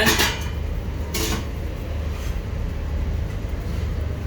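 Steady low mechanical rumble, with a brief clatter about a second in.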